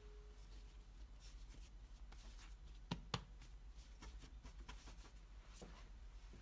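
Faint, soft rustling and pressing of hands shaping risen naan dough on a floured countertop, with two light taps about three seconds in.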